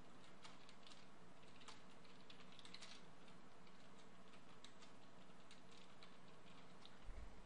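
Faint computer keyboard typing: irregular keystroke clicks as a line of text is entered, over a low steady hum. There is a brief low thump near the end.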